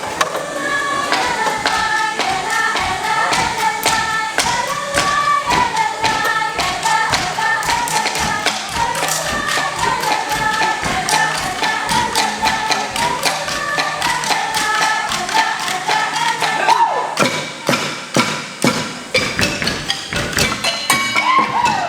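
Outro music with a steady percussive beat and a melody line.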